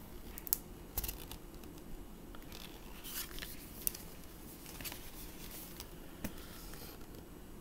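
Pages and paper flaps of a lift-the-flap picture book being handled and turned, giving faint scattered rustles and a few light clicks.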